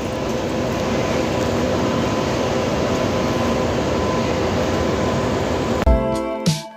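A steady rushing noise with a faint hum, then background music begins near the end.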